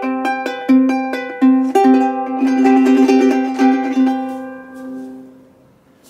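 Handmade G-Labo 'Wagamama' solid-wood soprano ukulele, acacia top with mahogany back and sides, played as a short melody of plucked notes over chords. It ends on a final note that rings out and fades away about five seconds in.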